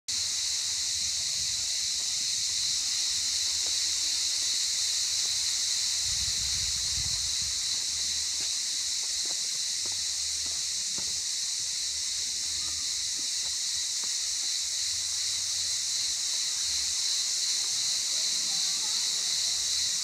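Steady high-pitched chorus of cicadas in the trees, one even unbroken drone. A brief low rumble about six seconds in.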